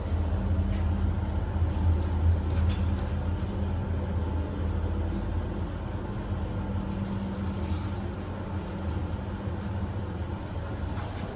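Heights glass hydraulic elevator running as the car travels: a steady low hum from the hydraulic pump unit, easing off in the second half, with a few faint clicks.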